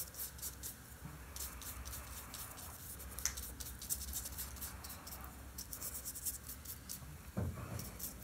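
Paintbrush scrubbing dry paint onto a painting surface in many quick, short strokes: a faint, uneven scratching. There is a soft low thump near the end.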